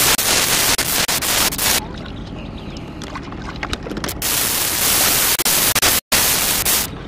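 Loud static hiss on the audio track that cuts in and out abruptly, with a short dropout to silence about six seconds in: a recording fault.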